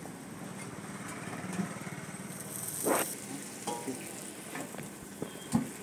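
Kulchas sizzling on a large flat street-food griddle, a steady frying hiss. A metal spatula scrapes and clinks against the griddle a few times, with sharp knocks about three seconds in and, loudest, near the end.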